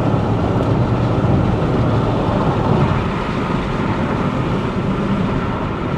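Freshly rebuilt GM LS4 5.3-litre V8 running under throttle, with road noise, heard from inside the car's cabin. The engine is being loaded to seat its new piston rings.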